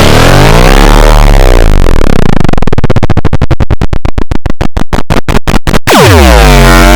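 Heavily distorted, pitch-warped iMovie sound effects played very loud. A tone sweeps up and back down, then breaks into a rapid stuttering pulse, and about six seconds in a new tone swoops down and back up.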